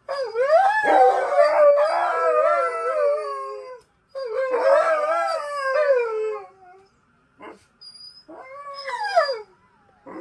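Alaskan malamutes howling: two long, wavering howls in the first six seconds, then a shorter howl that falls in pitch near the end.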